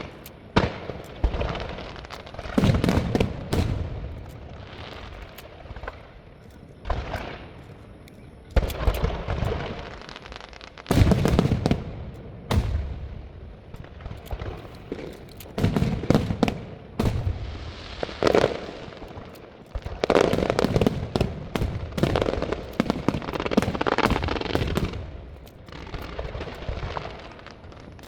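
A fireworks display: heavy booming shell bursts every few seconds, with crackling and sharp bangs between them.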